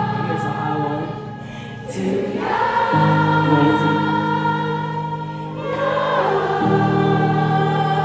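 Concert crowd singing along in chorus over sustained keyboard chords. The chords change about three seconds in and again near seven seconds.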